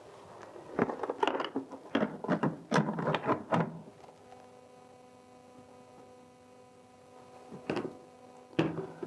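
Plastic clunks, clicks and rattles from the Rovin Ecospin manual washing machine's lid and spin basket being handled, lasting a few seconds. After that a faint steady hum of several even tones is left, with one more clunk near the end.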